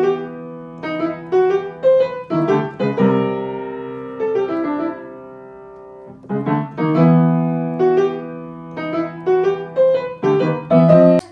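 Piano music: struck notes and chords that ring and fade, in two phrases with a held, fading chord between them.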